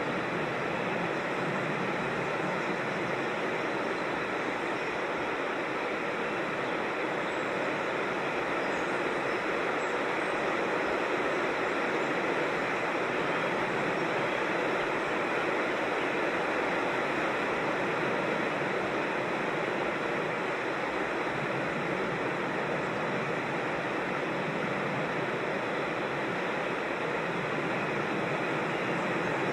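Rushing water of a creek or small waterfall, a steady, even rush with no breaks.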